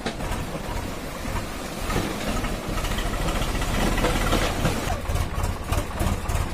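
Farm tractor's diesel engine running steadily while driving along a muddy track.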